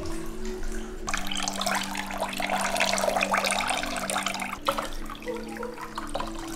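Water pouring from a rinse cup over a small wet dog and splashing into shallow bathwater, starting about a second in and easing off past the middle.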